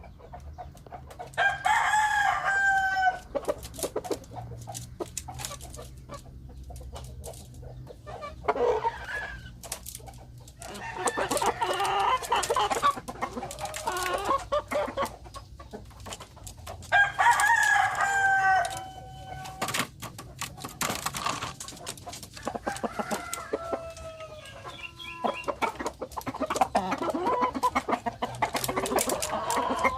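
A rooster crowing twice, once about a second in and again about halfway through, with chickens clucking in between.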